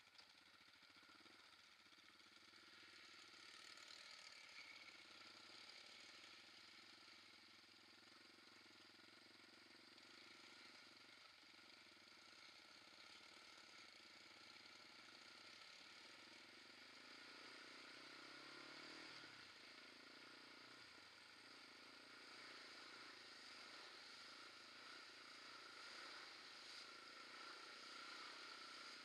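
Quad bike (ATV) engine running faintly while riding along a trail, its note shifting now and then with the throttle, including a brief rise and fall about two-thirds of the way through.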